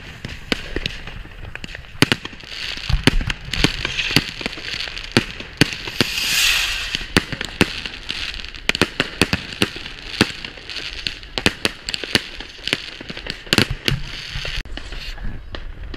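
Consumer fireworks going off all around: a dense, irregular run of sharp bangs and crackles from aerial shells and firecrackers, with a hiss that swells and fades about six seconds in.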